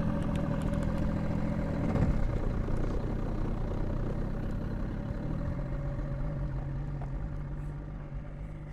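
Fishing boat's engine running steadily as the boat gets under way, its pitch changing about two seconds in and again around five seconds, growing fainter toward the end.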